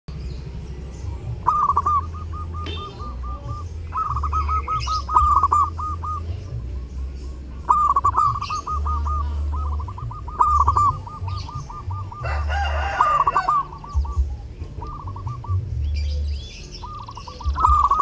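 Zebra dove (perkutut) cooing: about seven phrases, each a quick run of soft repeated notes. A short, harsher call from another bird cuts in about twelve seconds in, with faint chirps of small birds and a low rumble that comes and goes underneath.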